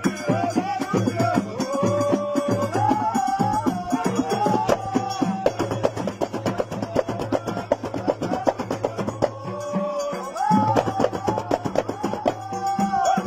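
Moroccan Hmada folk music: a man sings a drawn-out mayat melody over steady frame-drum percussion. The singing breaks off briefly about ten seconds in while the drumming goes on.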